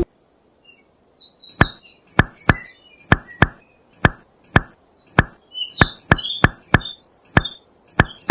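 A series of sharp, short knocks in an uneven rhythm, about two a second, like tools striking small pieces of wood, with high bird-like chirps above them.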